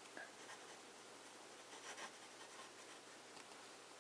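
Faint scratching of a fountain pen nib writing on paper, with small swells as letters are formed.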